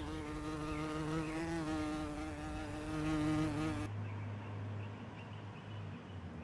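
A flying insect buzzing steadily, its pitch wavering slightly. About four seconds in the buzz stops, leaving a fainter low hum.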